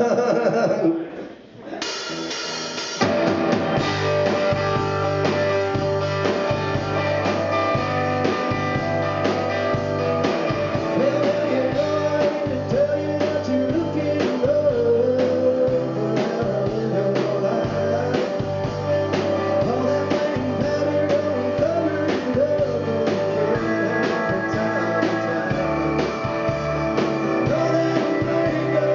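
Live band of electric guitar, bass guitar, drum kit and keyboard playing a song. A sung line fades out in the first second, and the full band comes in about two to three seconds in and carries on with a steady drum beat.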